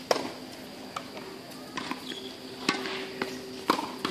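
Tennis balls being hit with racquets and bouncing on a hard court during a rally: a string of sharp pops, the loudest right at the start and twice near the end.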